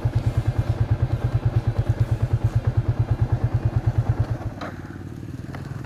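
Small single-cylinder motorcycle engine idling with an even, rapid putter of about eleven beats a second. About four and a half seconds in the putter drops away, leaving a quieter low engine hum.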